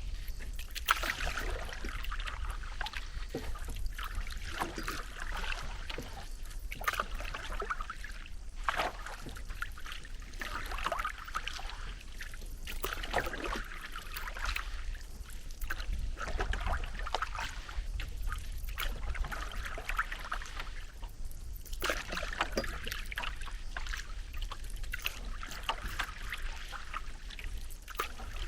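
A hand paddle dipping and pulling through lake water, splashing and dripping with each stroke every couple of seconds, over a steady low rumble.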